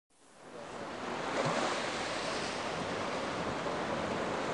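Steady wash of water waves, fading in over the first second.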